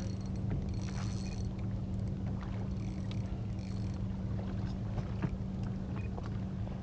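A small boat's motor running steadily with a low hum. A few faint clicks and two short high hisses sound over it.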